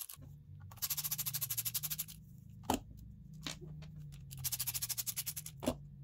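Screwdriver backing screws out of a Ridgid 18V Hyper lithium-ion battery pack's plastic case: two runs of rapid, evenly spaced clicking, each ending with a single sharp clink as a screw is set down on the wooden bench. A low hum runs underneath.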